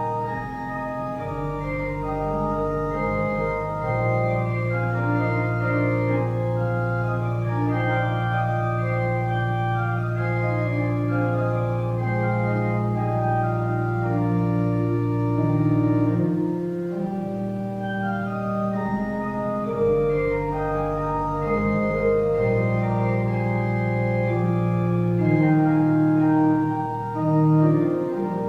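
Organ playing slow, sustained chords over long held bass notes, the chords changing every few seconds.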